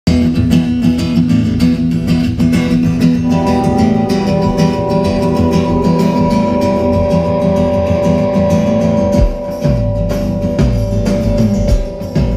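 Live band music over a stage PA: guitar chords and long held notes, with drums coming in about nine seconds in.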